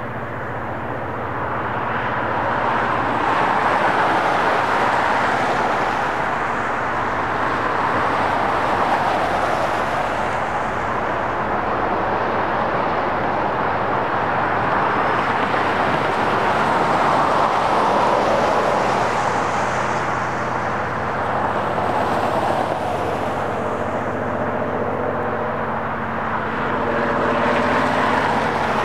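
Union Pacific rotary snow plow train's diesel locomotives working along the line: a continuous engine noise that swells and eases slowly, with faint steady tones coming in near the end.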